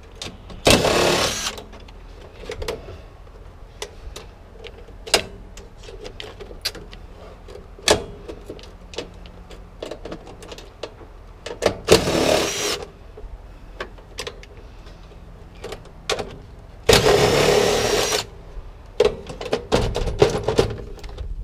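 Stuck scrap metal being worked loose by hand: scattered knocks and clicks of metal, with three louder harsh grating bursts of about a second each, near the start, midway and near the end.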